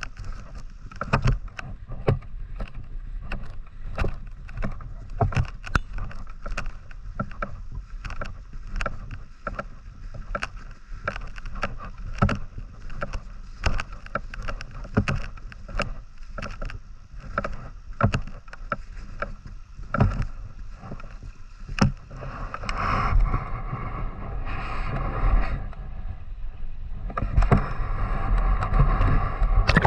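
River water sloshing and gurgling, with frequent sharp clicks and knocks throughout. In the last third a steadier rushing sound of water joins in.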